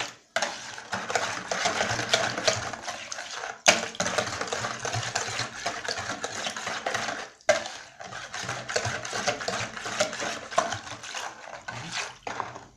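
A wire balloon whisk beats a thin flour batter in a plastic bowl: fast, continuous clicking and scraping as the wires strike the bowl, with a few brief pauses, stopping just before the end.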